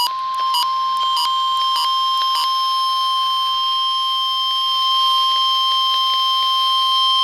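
NOAA Weather Radio warning alarm tone, the steady single-pitch 1050 Hz alert, sounding as a weekly test of the warning system. Five short beeps are laid over it in the first two and a half seconds.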